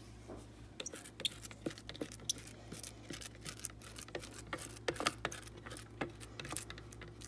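Plastic spatula scraping and tapping against the inside of a plastic food processor bowl in many short, irregular strokes, pushing minced roasted garlic down from the sides.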